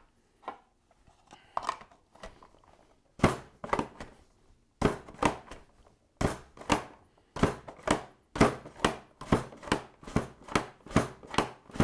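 Pampered Chef mandoline slicer pumped up and down to julienne a carrot: a few scattered clicks, then from about three seconds in a steady run of sharp clacking strokes, nearly two a second, as the blade cuts through the hard carrot. The carrot is tough and takes some force.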